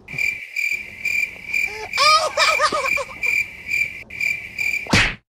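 Cricket chirping sound effect, an even pulsing chirp about three times a second, the meme's 'crickets' cue for an awkward pause. A short wavering cry sounds about two seconds in, and a quick rising swish comes just before the sound cuts off.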